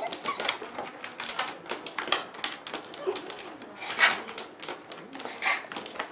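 A dog's fast, laboured breathing: quick noisy gasps, several a second, with a few louder ones among them. The owner suspects this is reverse sneezing.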